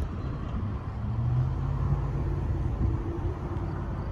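Long freight train rolling past: a steady low rumble of wheels on rail, with a low hum that comes up about a second in and fades near the end.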